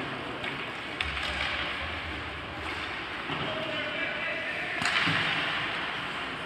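Ice hockey game sounds through the rink glass: a steady wash of skates and sticks on the ice and spectators talking, with a sharp stick-on-puck crack about a second in and a louder bang about five seconds in.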